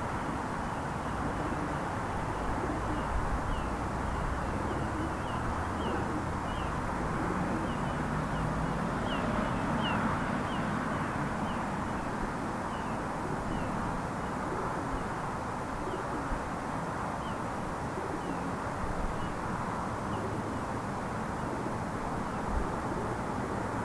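Steady hum of distant road traffic, with a small bird chirping over it in a long run of short high chirps that stops near the end.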